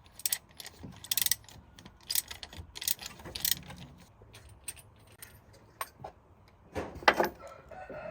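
Metal hand tools and parts clinking and rattling in short, irregular bursts, with a louder clatter about seven seconds in.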